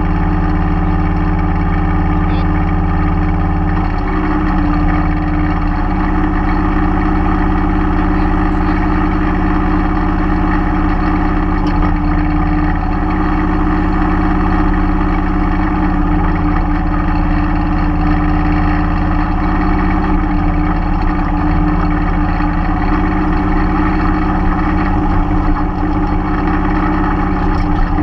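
Mahindra 3016 compact tractor's diesel engine running steadily at working speed, its pitch dipping briefly a few times as the backhoe's hydraulics take load.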